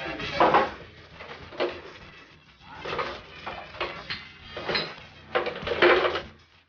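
Glass bottles clinking and knocking against each other and on a wooden table: a string of irregular clatters, loudest about five and a half seconds in.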